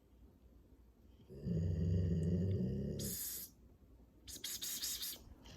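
Sleeping pit bull snoring: one loud snore about two seconds long, ending in a short airy hiss, then another breathy puff a second later.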